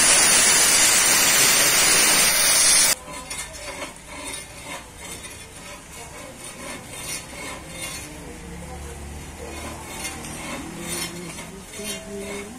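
Oxy-fuel cutting torch cutting steel plate, a loud, steady hiss of the cutting jet that stops abruptly about three seconds in. Then a much quieter crackling sizzle with small clicks as the lit torch flame works on the metal.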